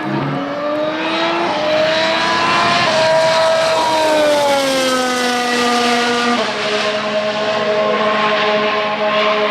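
The 1.6-litre turbocharged V6 hybrid engine of a 2017 Mercedes-AMG F1 W08 Formula 1 car at high revs. Its note rises over the first couple of seconds, holds, then falls away, drops in a step about six seconds in and carries on at a steady pitch.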